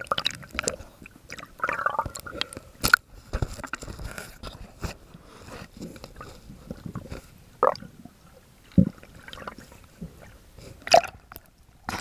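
Underwater camera sloshing and bumping through the water: irregular sharp clicks and knocks with muffled low thumps and water noise. The loudest clicks come about three seconds in and near the end.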